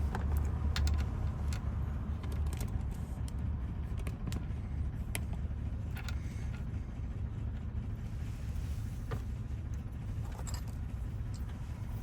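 Small metal clicks and scrapes, irregular and a few seconds apart, as a bent wafer is worked out of a Chevy Silverado door lock cylinder with small tools, over a steady low hum.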